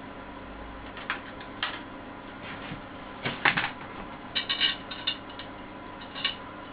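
Scattered small clicks and knocks of hands handling tools and parts on a workbench, the loudest cluster about three and a half seconds in, over a steady low hum.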